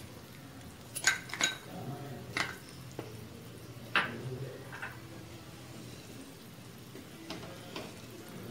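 Wooden spoon stirring thick curry in an earthenware clay pot, knocking and scraping against the pot's sides. There are several sharp knocks, the loudest about a second in and at four seconds.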